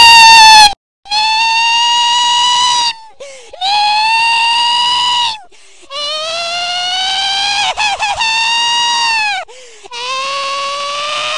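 The 'guy crying like a little girl' meme sound: a man's high, drawn-out wailing cry. A very loud, distorted version cuts off under a second in. After a short break come four long wails with short gaps between them, the wail played backwards, and the later ones slide upward in pitch.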